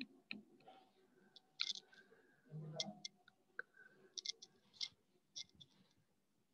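Quiet room tone with faint, irregular clicks scattered throughout.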